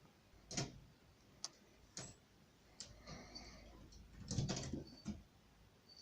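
A few irregular, scattered clicks and scuffs, with a louder cluster of scraping clicks about four and a half seconds in.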